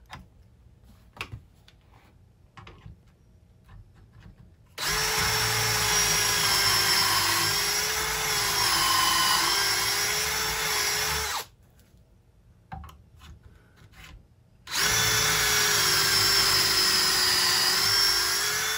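Cordless drill boring dowel holes through a dowel jig into wood: two runs of steady motor whine, the first starting about five seconds in and lasting about six and a half seconds, the second starting near fifteen seconds, the pitch sagging a little at times under load. Light clicks and handling knocks between the runs.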